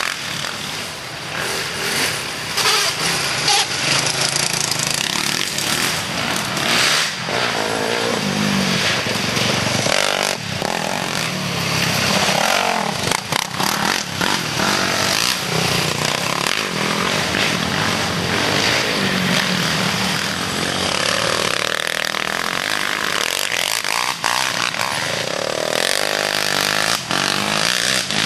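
Engines of off-road race machines running and revving, with a thick noisy rasp throughout. One engine revs up and down clearly near the end.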